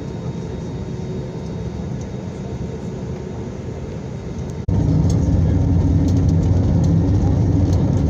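Airplane engines during takeoff: a steady roar that jumps abruptly much louder a little past halfway, into a heavy low drone.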